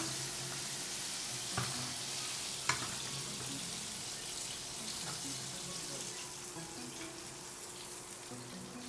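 Breaded chicken deep-frying in a pan of hot oil: a steady sizzling hiss. Two sharp metal clicks come about one and a half and nearly three seconds in.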